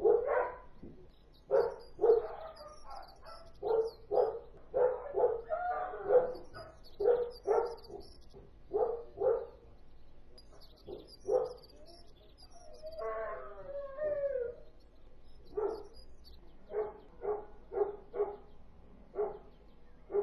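Kennel dogs barking repeatedly in short, irregular volleys, with a drawn-out wavering howl about two-thirds of the way through: the persistent barking of a dog-breeding kennel that is the subject of a noise-nuisance complaint.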